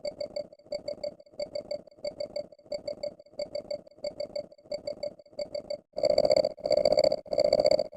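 A repeating electronic beeping sound effect: a pitched, fluttering tone in short bursts about twice a second. About six seconds in, the bursts grow louder and longer.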